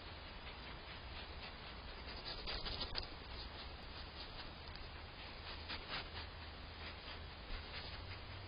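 Soft scratching and rubbing of a Virginia opossum nosing and stepping right at a Blink security camera, heard over the camera microphone's steady hiss and low hum; a cluster of louder scratches comes about two to three seconds in.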